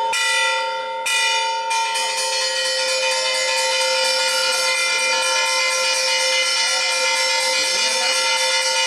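Diesel locomotive's air horn sounding a long continuous blast of several steady tones together, broken briefly twice in the first two seconds and then held. The train's running noise grows beneath it as the train approaches.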